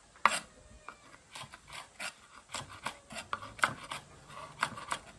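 Kitchen knife chopping green beans on a wooden cutting board: sharp, irregular taps of the blade striking the board, about two a second, the loudest just after the start.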